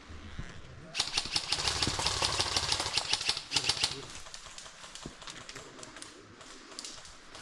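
Airsoft guns firing on full auto: a burst of rapid, evenly spaced clicking lasting about three seconds, starting about a second in, followed by scattered fainter shots.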